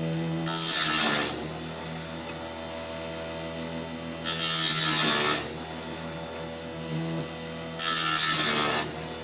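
Electric chainsaw sharpener's grinding wheel running and brought down onto a bandsaw blade's teeth three times. Each grind is loud and lasts about a second, about three and a half seconds apart, with the motor humming steadily in between.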